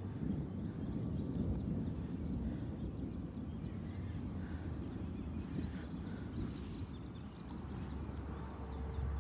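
Wind buffeting the microphone as a low, uneven rumble, with faint high chirps scattered through.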